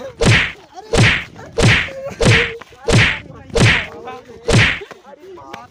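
Blows landing in a staged beating: seven heavy whacks, about two-thirds of a second apart, stopping near the end.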